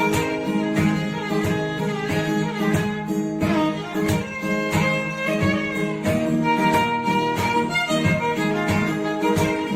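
Background music: a string tune led by violin over a plucked guitar accompaniment, with a steady beat.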